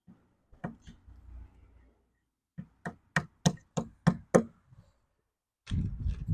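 Sharp knocks during work on wooden dowels: two or three light ones, then a quick run of about seven loud knocks, roughly three a second, then a duller rumbling clatter near the end.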